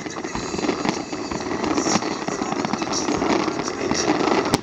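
Fireworks display: a dense, continuous crackling and popping of bursting shells, with one sharp crack near the end.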